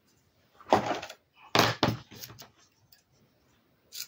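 Craft materials being handled on a cutting mat: a few short rustling and knocking noises, the loudest about a second in and a cluster soon after.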